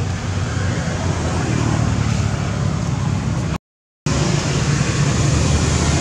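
Steady low rumble of outdoor background noise, cut off completely for about half a second just past halfway.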